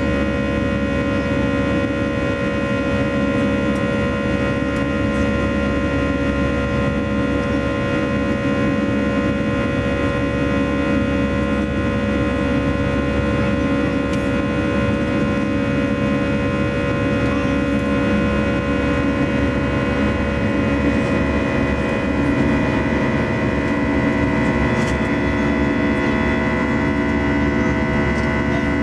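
Airbus A320 cabin noise in flight: the jet engines and airflow make a steady drone with several held whining tones. About two-thirds of the way through, a higher tone grows stronger.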